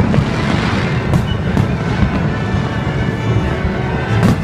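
Aerial fireworks going off in a continuous barrage of low booms and crackle, with a few sharp cracks, mixed with music.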